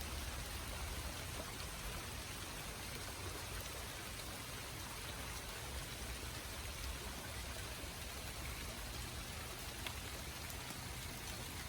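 Steady rain coming down, with a few faint individual drop ticks.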